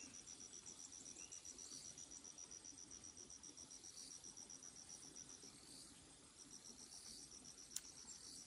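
Faint insect chirping in a high, fast, even pulse that stops about five and a half seconds in and starts again a second later. One sharp click sounds near the end.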